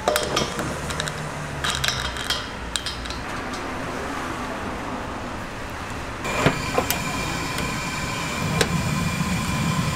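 Metal clinking and tapping as a gas regulator is fitted to an LPG cylinder. From about six seconds in come several sharp clicks from a butane hand torch, and near the end a low rumble as the fryer's gas burner is lit.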